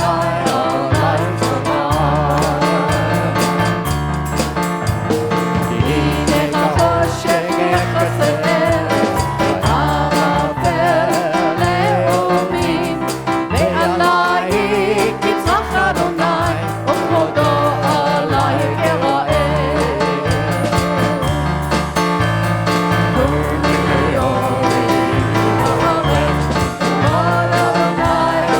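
Worship music: singing over a band with bass and drums, a steady beat throughout.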